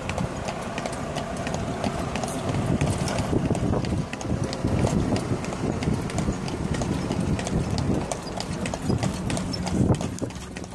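Horse's hooves clip-clopping steadily on a paved road as a horse-drawn carriage moves along.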